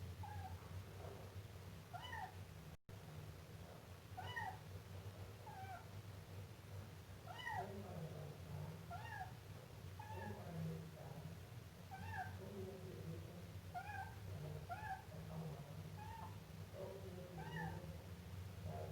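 Siamese kitten meowing over and over, short rising-and-falling meows about once a second, over a steady low hum.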